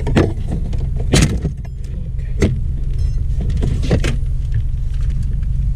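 Plastic dashboard trim around a car radio being pried loose with a butter knife: several sharp clicks and snaps from the retaining clips and plastic, the loudest about a second in, over a steady low hum.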